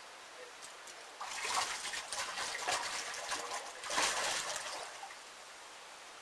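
Water splashing and trickling in a burst of several seconds, with many quick crackling strokes, loudest twice.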